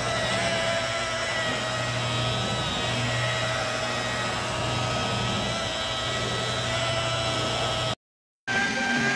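Electric rotary polisher with a foam buffing pad running steadily on a car's painted door, a constant motor whine over a low hum. It cuts out for half a second about eight seconds in, then runs again at a different pitch.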